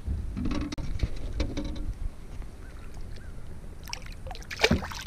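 A largemouth bass released back into the lake: one sharp splash near the end as the fish goes into the water, over a steady low rumble.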